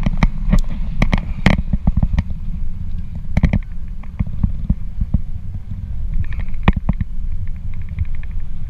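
Wind buffeting the microphone of an action camera in paragliding flight, a loud steady low rumble, with scattered sharp clicks and knocks from a hand gripping riser webbing, ropes and carabiners right beside the camera.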